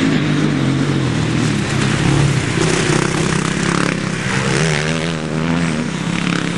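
Motocross motorcycle engine running hard, its pitch rising and falling as the throttle is worked.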